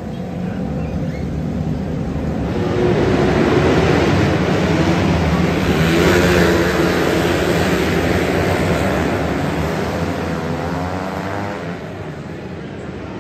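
A pack of small winged dirt-oval race cars racing in an enclosed arena, their engines swelling to the loudest point as the field passes about halfway through, then easing off near the end with the engine pitch sliding as they move away.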